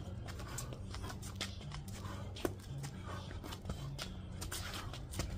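Shoes shuffling and scuffing on concrete patio pavers and light taps of boxing gloves as two people spar, with one sharper knock about halfway through, over a low steady hum.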